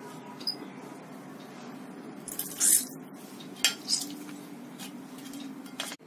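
Clinks and knocks of a hand-held metal lemon squeezer working over a plastic strainer on a steel bowl. The loudest is a short clattering burst about two and a half seconds in, followed by two sharp knocks a little over a second later, over a steady low hum.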